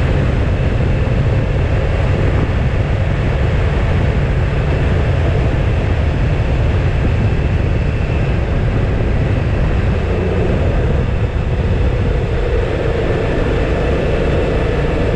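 Motorcycle riding at highway speed: steady wind rush over the bike-mounted microphone, with the engine running underneath.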